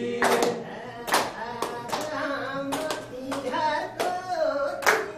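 Hands clapping roughly every half second, in time with a voice singing a melody.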